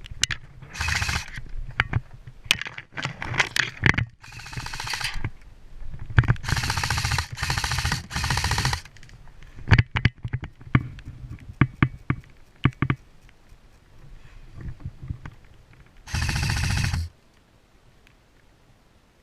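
Airsoft guns firing full-auto bursts of about a second each, with scattered single shots and sharp clicks in between. The longest run of fire comes a few seconds in, and there is one last burst near the end.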